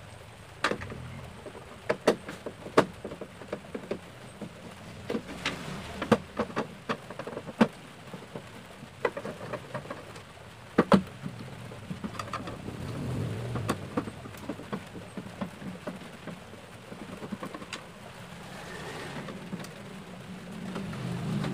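Irregular sharp clicks and knocks of a screwdriver and hands working screws out of the plastic back cover of an old CRT television. Light rain sounds steadily in the background.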